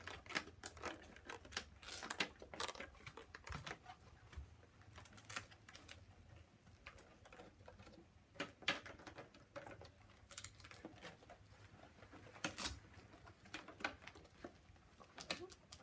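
Faint, irregular clicks, taps and rustles of thin plastic face shields being pushed into the cages of karate head guards and handled.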